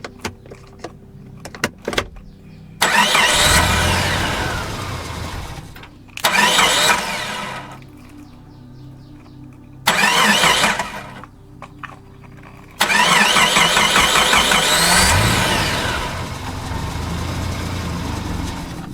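Car engine starting and revving in four loud bursts, the pitch climbing in each; the last rev is the longest and dies away slowly. A few light clicks come before the first.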